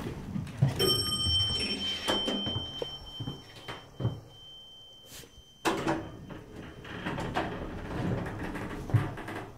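Elevator sounds: a steady high electronic beep holds for about five seconds from about a second in and ends at a sharp knock, over knocks and rustles of a handheld phone being moved.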